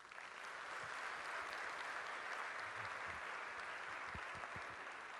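Audience applauding: a steady, even clatter of clapping that builds in the first second and eases off toward the end.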